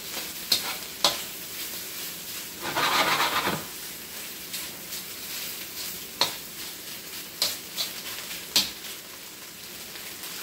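Thin-sliced beef searing in a smoking-hot wok: steady sizzling, with sharp clicks and scrapes of a metal spatula against the wok, and a louder surge of sizzling about three seconds in.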